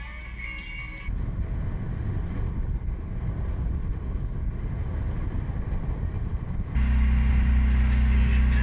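Honda outboard motor driving a small aluminium boat at cruising speed, with wind and water rushing past the hull. Near the end the motor becomes a louder, steady low hum.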